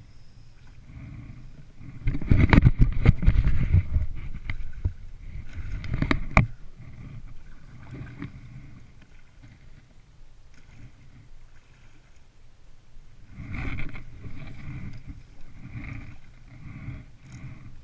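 Kayak being paddled: paddle strokes through the water and water splashing against the plastic hull. The sound comes and goes, with louder stretches about two to four seconds in, briefly near six seconds, and again around fourteen seconds.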